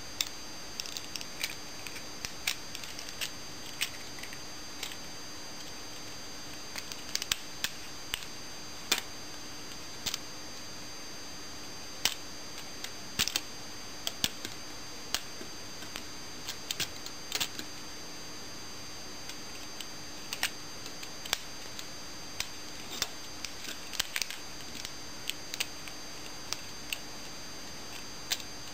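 Irregular clicks and snaps of a small plastic Transformers Universe Hound figure being transformed by hand, its joints and parts shifting and locking into place, over a faint steady hum.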